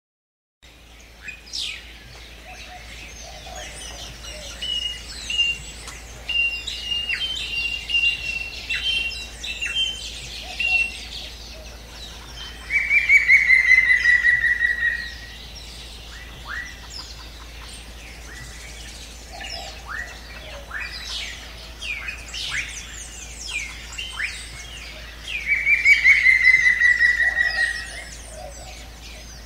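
Mixed birdsong from many birds chirping, with a run of quick repeated high notes for several seconds. Twice, about twelve seconds in and again near the end, there is a loud call lasting about two seconds that falls slowly in pitch.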